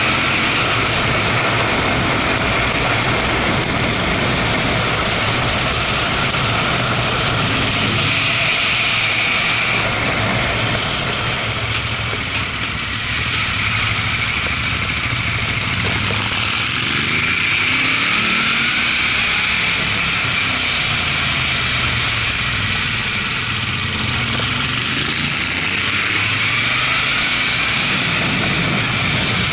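Motorcycle riding uphill: wind rushing over the action camera's microphone on top of the Moto Guzzi California 1400 Touring's transverse V-twin engine pulling steadily. The engine eases off briefly about twelve seconds in, around a hairpin bend, then pulls again.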